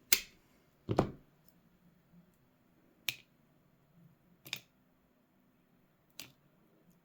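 Hand cutter snipping through hookup wires, five short sharp snaps a second or two apart, the loudest at the start and about a second in.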